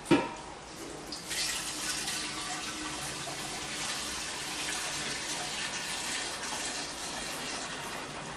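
Liquid poured from a stainless steel pot into a stainless steel distiller boiler, splashing steadily into the vessel. There is a sharp metallic clank with a short ring right at the start, and the pour builds up about a second in.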